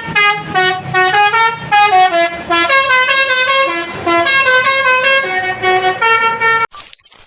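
STJ Draka bus's telolet basuri musical horn playing a quick melody of short, changing notes. It cuts off near the end, followed by a few sharp clicks.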